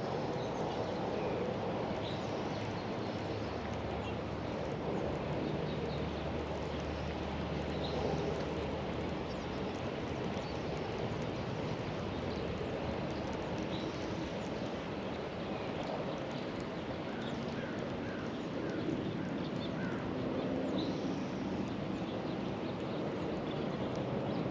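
Riverside outdoor ambience: a steady hiss with faint bird chirps here and there, and a quick run of chirps about seventeen seconds in.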